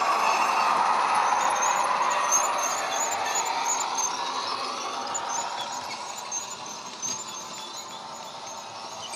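Model locomotive's ESU LokSound EMD 8-645 diesel engine sound, played through a small megabass speaker in the model, passing close and then fading as the train pulls away. The wagons' wheels click steadily over the model track.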